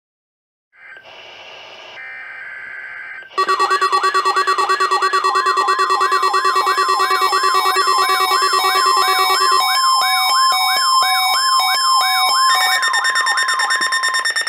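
NOAA Weather Radio alert for a required weekly test: after a couple of seconds of buzzy digital bursts, the loud, steady 1050 Hz warning alarm tone sounds together with a fast wailing siren-like sweep, about two and a half rises a second, with high beeping tones over it.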